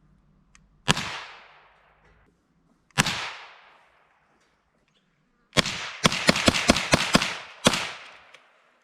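Gunshots: two single shots about two seconds apart, then a fast string of about ten shots in roughly two seconds, each trailing off in a long echo.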